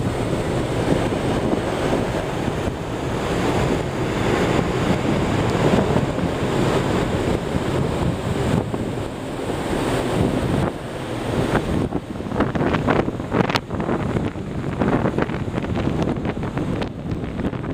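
Wind buffeting the microphone over the steady rush of sea water along a moving ship, turning gustier about two-thirds of the way in.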